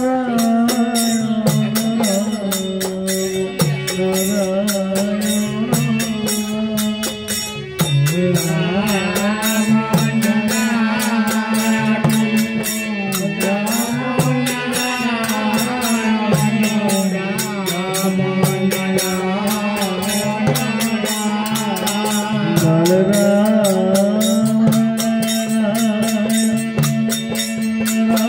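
Devotional kirtan music: a harmonium holds steady chords over the regular beat of a hand-played double-headed barrel drum. About eight seconds in, voices come in chanting the melody.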